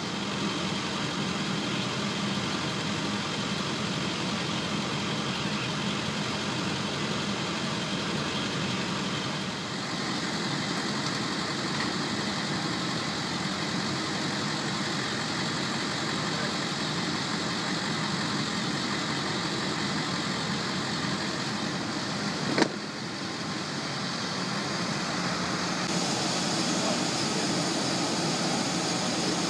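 Steady drone of engines and machinery running on an airport ramp, its tone shifting twice. One sharp knock about three-quarters of the way through.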